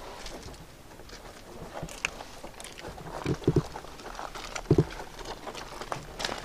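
A few dull knocks on the van's body during hands-on work under the roof: two close together about halfway through and another a second later, amid faint clicks and handling noise.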